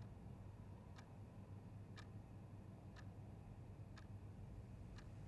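A clock ticking faintly, once a second, over a low steady room hum.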